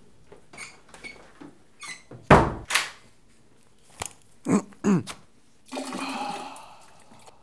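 Toilet-stall sounds in a small tiled room: a loud thump about two seconds in and a few lighter knocks, two short sounds falling in pitch, then about a second of rushing water like a toilet flush.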